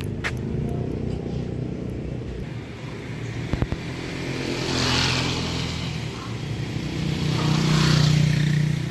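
An engine running steadily, with two louder swells of hiss about five and eight seconds in, like vehicles going past. A couple of short sharp clicks come about three and a half seconds in.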